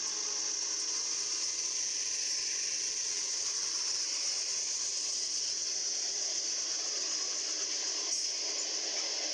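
Steady hissing rush of a BNSF freight train's locomotives and container cars rolling past on the rails, heard through a trackside webcam's microphone, with no horn and no distinct clanks.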